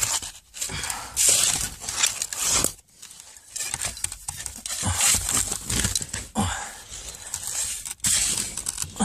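Rustling and scraping of a caver's clothing and body against sand and rock while squeezing through a tight crawlway, in irregular bursts.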